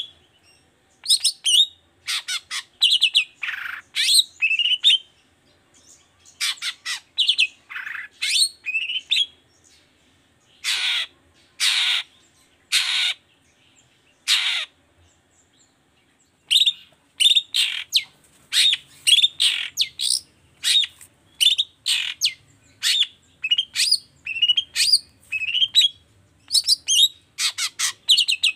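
Long-tailed shrike (cendet) calling: bursts of quick, chattering phrases. About a third of the way in these give way to four harsh, noisy calls about a second apart, then the chattering resumes.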